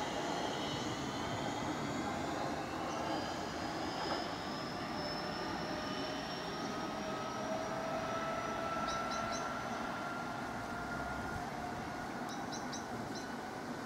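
Southeastern Class 465 Networker electric multiple unit pulling away as it accelerates, its traction motors giving a thin whine that climbs slowly in pitch over a steady running rumble. A few short high chirps come near the end.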